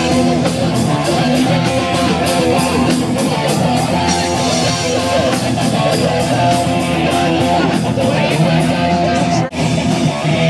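Live punk band playing loud, with guitar and a fast drum beat, recorded from among the crowd; the music breaks off for an instant near the end.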